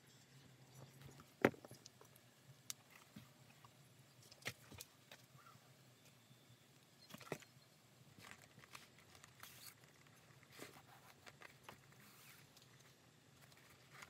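Hand stitching with an awl: scattered soft clicks and rustles as the fabric is pierced and handled and the thread is worked, the sharpest click about a second and a half in.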